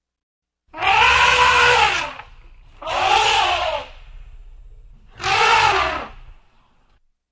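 Elephant trumpeting: three loud calls, each about a second long and rising then falling in pitch, coming every two and a half seconds or so.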